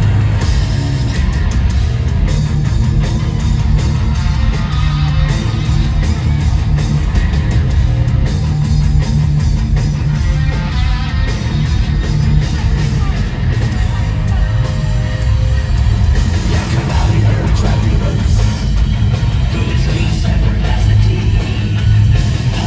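A heavy rock band playing live at concert volume, electric guitars and drums with a heavy, booming low end.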